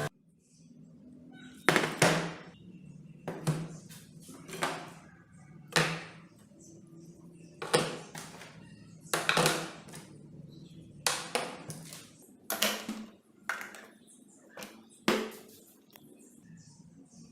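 A series of about a dozen short, sharp scraping or knocking strokes at irregular intervals, typical of hand-tool work on a workbench, over a faint low hum.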